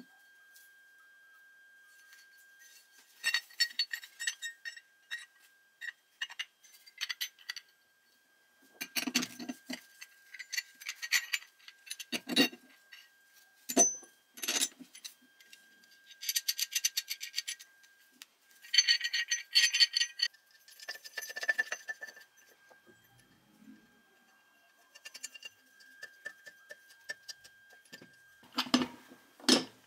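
Small steel parts handled on a workbench: nuts, washers and a threaded rod clinking and rattling, with runs of rapid clicking as nuts are spun along the threads and a few duller knocks of metal set down on wood.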